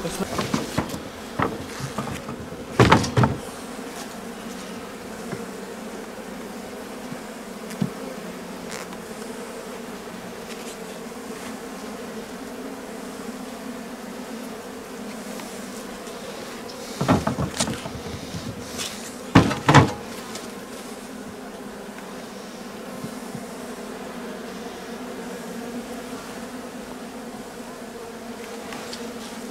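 Honeybees buzzing in a steady drone around an open hive. A few short wooden knocks from the hive being handled: once about three seconds in, and a cluster of them a little past halfway.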